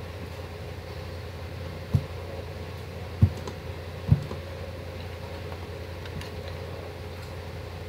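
Three short, low thumps, about a second apart, over a steady low hum.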